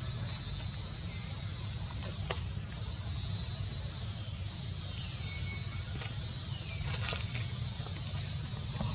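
Steady outdoor background: a constant high-pitched hiss over a low rumble, with a few faint clicks and a short falling tone about halfway through.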